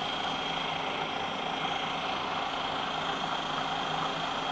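Electric food processor motor running steadily, beating a crème caramel and milk mixture.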